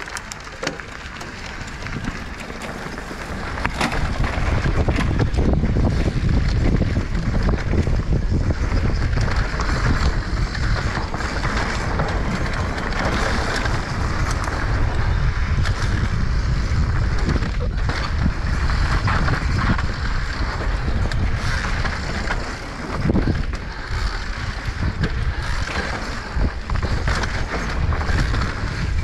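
Mountain bike riding fast down a dirt trail: wind buffeting the microphone and knobby tyres rolling over dirt and leaf litter, with scattered clicks and rattles from the bike. It builds over the first few seconds as the bike picks up speed, then holds steady.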